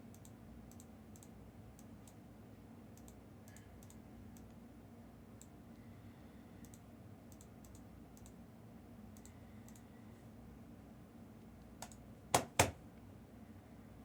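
Light, scattered clicks of typing on a computer keyboard over a low steady hum. Near the end comes a quick pair of louder, sharper clicks.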